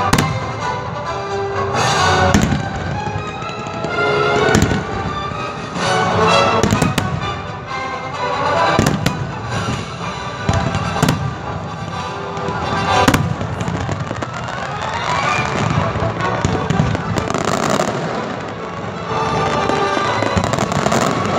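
Display fireworks: aerial shells bursting with sharp bangs at irregular intervals, with crackling between them. Music plays throughout.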